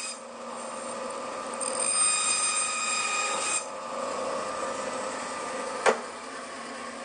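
Bandsaw running with a steady whine. Its blade cuts through timber, louder from about one and a half to three and a half seconds in, then a single sharp knock near the end.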